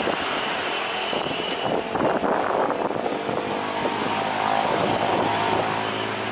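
Boeing 737's twin turbofan engines running at taxi power as the airliner rolls along. A steady rushing noise, with several humming tones in the engine whine from about three seconds in.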